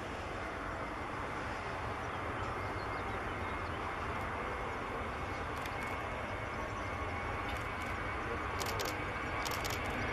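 Airbus A321-200 jet engines at takeoff thrust during the takeoff roll: a steady rushing noise that grows slowly louder as the airliner accelerates toward rotation.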